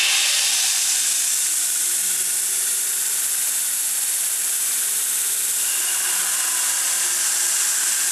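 Belt grinder running, its abrasive belt giving a loud, steady hiss. Near the end a steel guard block is pressed against the belt and ground square, throwing sparks.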